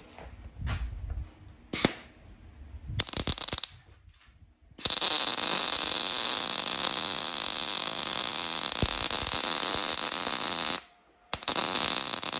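Wire-feed welder arc sizzling and crackling as it runs 0.023 wire on 220 V, building up weld inside an old spark plug shell. It makes a couple of brief strikes in the first few seconds, then a steady run of about six seconds, then another short run near the end.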